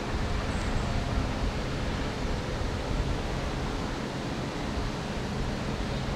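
Wind on the microphone: a steady rushing noise with an uneven low rumble.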